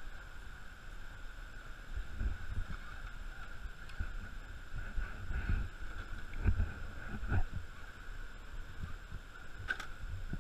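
Radio-controlled Axial rock crawler with a Chevy Avalanche body clambering over boulders: irregular low knocks and rumbles of its tyres and chassis on the rock over a thin steady high whine, with a sharp click near the end.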